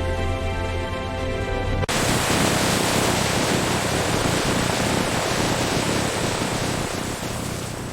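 Music that cuts off abruptly about two seconds in, giving way to a steady, loud rushing noise.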